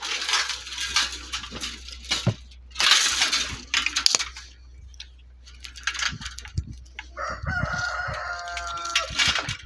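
A rooster crowing once, a held call of about two seconds near the end. Before it come loud bursts of rustling noise.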